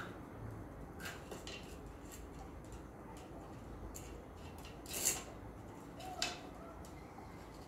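Small dogs playing on a stone floor, a puppy mouthing and pushing a hard plastic toy: faint scattered clicks and scrapes, with a few louder ones about a second, five seconds and six seconds in.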